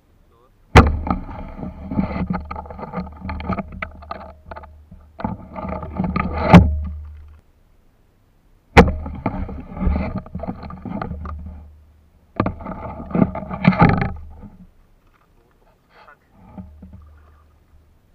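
Water splashing and sloshing in shallow seawater, in four bursts of a few seconds each and a faint one near the end. Each burst starts with a sharp knock and carries a low rumble.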